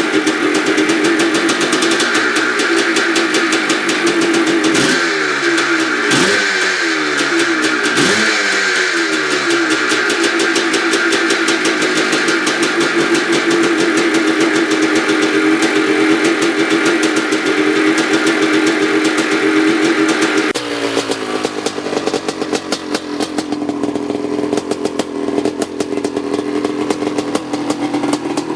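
Two-stroke dirt bike engine running under way at steady revs. The revs drop and climb again three times about five to nine seconds in, as on throttle chops or gear changes. About twenty seconds in the sound changes abruptly to a quieter engine note.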